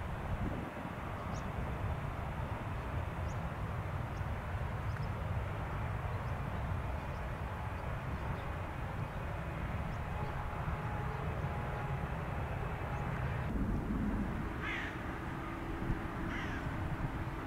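A crow cawing twice near the end, over a steady low rumble that shifts in tone about two-thirds of the way through.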